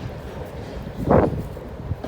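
Low rumble of a CSX intermodal freight train pulling away, with wind buffeting the microphone and one stronger gust about a second in.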